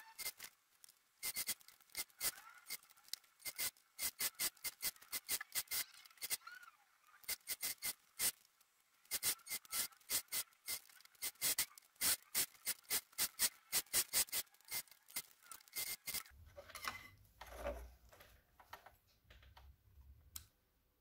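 Domestic electric sewing machine stitching slowly: a quick run of needle-stroke clicks, a few a second with short pauses, over a faint motor whine. About three-quarters of the way through the stitching stops, and a low rumble and a short louder sound follow.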